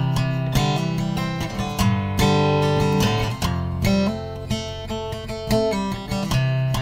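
Acoustic guitar strumming chords in a song's instrumental passage, with no singing.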